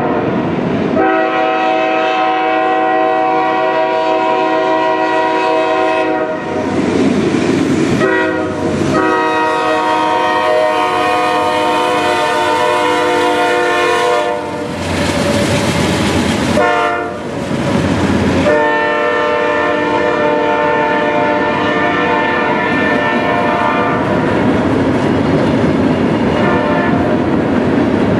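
Norfolk Southern diesel freight locomotive's air horn blowing a loud chord of long blasts, held nearly throughout, as the train passes a grade crossing. Gusts of wind buffet the microphone several times.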